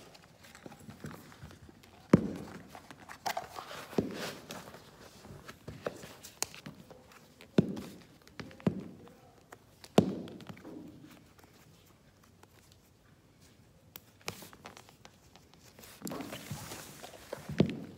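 Pointe shoes being handled and put on: several sharp knocks and thuds as the stiff shoes meet the floor, with satin and ribbon rustling while the ribbons are wrapped and tied.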